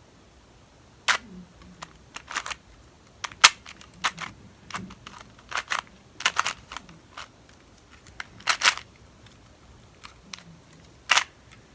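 2x2 Rubik's Cube being twisted by hand: a series of sharp plastic clicks as its layers turn, irregularly spaced, some coming in quick clusters.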